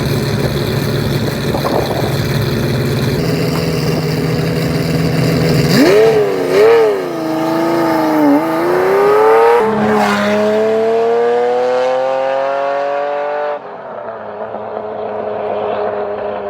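Ferrari Mondial's V8 engine, with a steady drone at first. About six seconds in it is revved up and down, then a break in the note is followed by a long rising pull that ends with the throttle lifted near the end.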